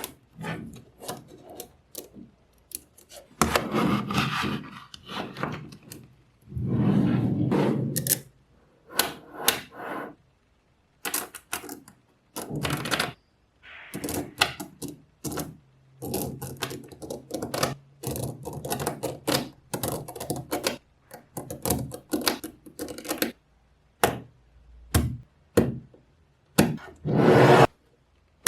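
Small magnetic balls clicking as they snap onto one another, many sharp clicks in an uneven run, with a few longer stretches of balls rattling and sliding against each other.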